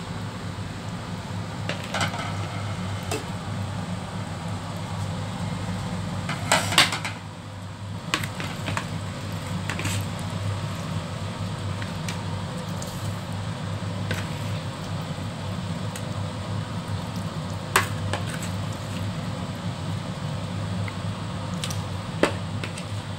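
Scattered knocks and clinks of a wooden spoon and a plastic bowl against a stainless steel stockpot as fish pieces are added to boiling soup, the loudest a short cluster about a quarter of the way in. A steady low hum runs underneath.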